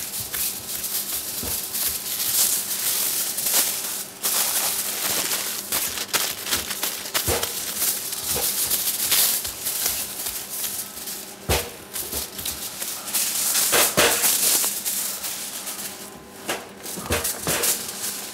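Aluminium foil crinkling and rustling as it is torn from the roll and crimped by hand around pudding basins, with scattered sharp crackles and a few louder knocks.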